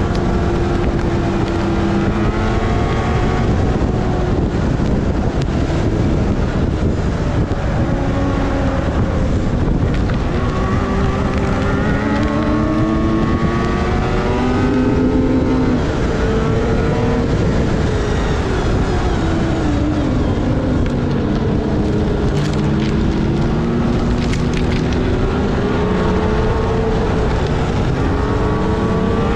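Polaris snowmobile engine running under throttle, its pitch rising and falling again and again as the rider speeds up and eases off, over a steady rushing noise.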